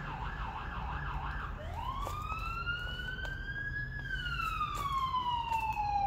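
Emergency vehicle siren: a fast warble for about a second, then a wail that rises for about two seconds and slowly falls away.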